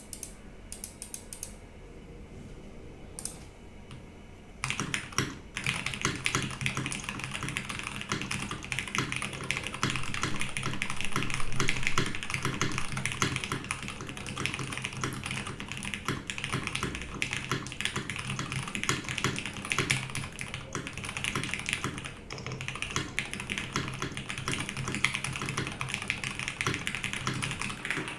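Mode Sonnet mechanical keyboard with lubed Cherry Nixie switches, a carbon fibre plate and Monokei Series 1 keycaps being typed on. A few scattered keystrokes come first, then fast, continuous typing from about five seconds in.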